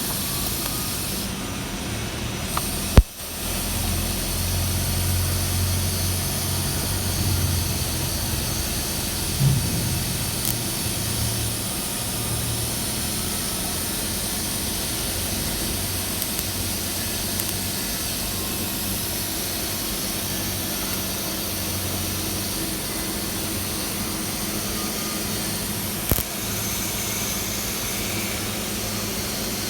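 Welding on thin 1.2 mm tank tubing: a steady hiss with a low hum, broken by a sharp click about three seconds in and another near the end.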